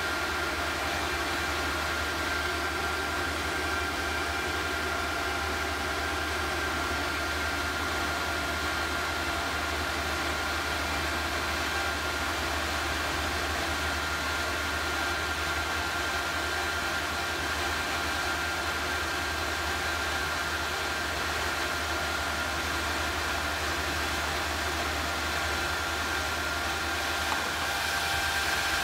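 Small induction heater and its cooling fans running steadily while heating a graphite crucible of bronze: a constant whir with a steady high tone and a low hum underneath.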